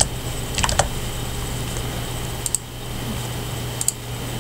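Sparse computer keyboard and mouse clicks: a single click, a quick cluster of three or four, then two more isolated clicks. A steady low electrical hum runs underneath.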